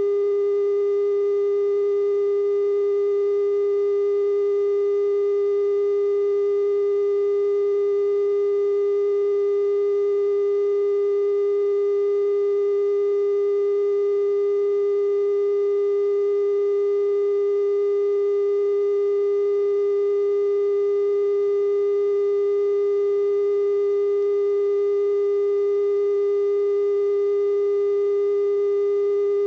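Steady 420 Hz television test tone, one unbroken pitch with faint higher overtones, sent with the color bars while the station is off the air after sign-off.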